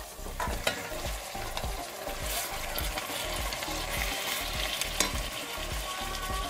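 Raw mutton pieces sizzling and frying in hot oil with onions and whole spices in a stainless steel pan, stirred and scraped with a wooden spatula. A few sharp taps of the spatula on the pan.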